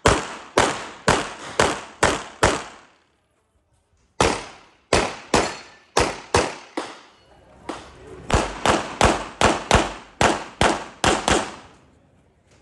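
Red-dot-equipped 9mm competition pistol fired in fast strings: about two dozen shots, two to three a second, each with a short ringing echo, broken by a pause of about a second a few seconds in.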